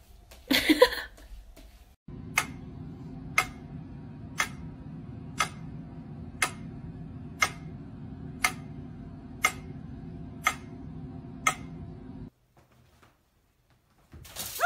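Steady ticking, about one tick a second, over a low steady hum; it starts about two seconds in and cuts off suddenly near the end. A brief louder sound comes about half a second in.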